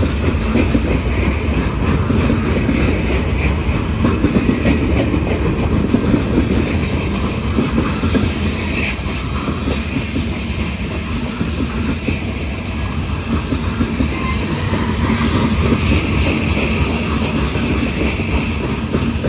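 Freight train cars rolling past close by: a steady rumble of steel wheels on rail, with rapid clickety-clack of wheels running over the rail joints.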